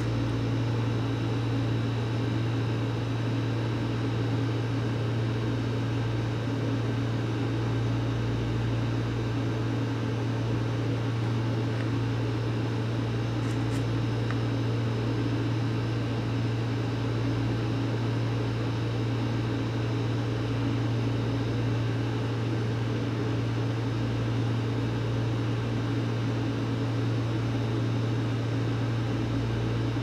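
Steady electrical appliance hum: a strong low drone with an even hiss above it, unchanging throughout. A couple of faint clicks come about halfway through.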